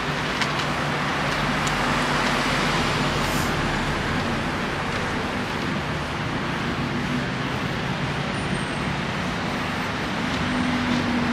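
Street traffic: cars driving past on a city road, a steady wash of engine and tyre noise.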